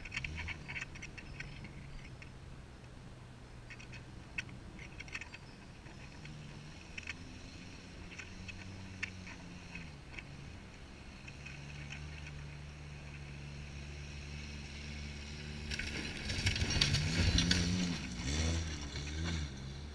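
Mazda pickup truck engine running, its pitch rising and falling as it approaches, then revving hard and loud for about three seconds near the end as the truck pushes through an overgrown garden bed, with rough scraping and crackling of brush.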